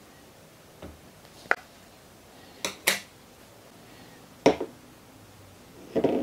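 Hard plastic parts of a magnetic car phone mount set down one by one on a wooden table: about half a dozen sharp clicks and knocks, the loudest about four and a half seconds in, with a quick cluster of knocks near the end.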